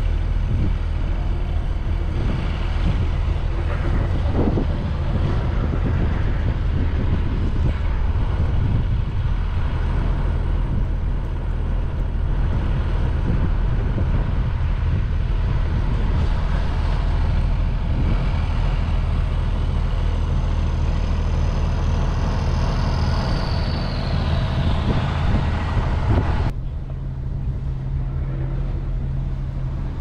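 Engine of a city transit bus running close by, a steady low hum, with the hiss of traffic in the snow over it. A high whine glides down in pitch a few seconds before the end, and the higher hiss cuts off suddenly near the end while the hum goes on.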